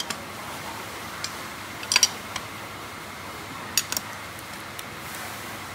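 Sharp metallic clicks of a hand wrench working the bolts of a Honda Wave RSX 110 engine's clutch cover as they are tightened down in a cross pattern: a close pair about two seconds in and another about four seconds in, with a few fainter ticks, over a steady background hiss.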